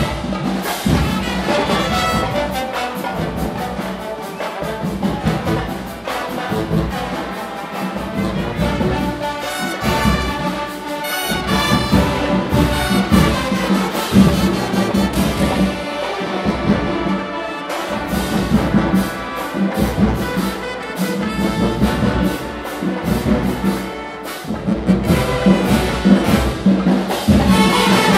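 Marching band playing: trumpets and trombones carry the tune over a steady, busy beat of drums.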